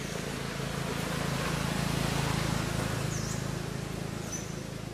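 A motor vehicle passing by: a steady engine hum with road noise that swells to its loudest about halfway through and then fades. Two short bird chirps come in the second half.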